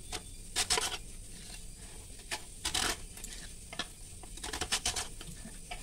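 Raw potato pushed across the wavy blade of a handheld metal crinkle-cut chip slicer, three short rasping slicing strokes about two seconds apart.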